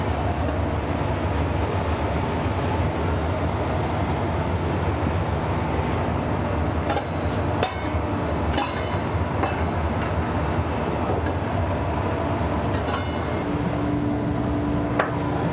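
Steady rumble of a commercial kitchen's ventilation, with a few light metallic clinks of tongs against pans.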